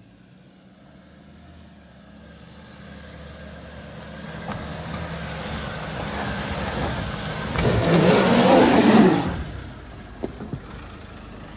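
4WD's engine revving under load on a rocky climb, getting steadily louder, with a loud surge of tyres spinning and scrabbling for traction from about seven and a half seconds in that drops away suddenly a couple of seconds later.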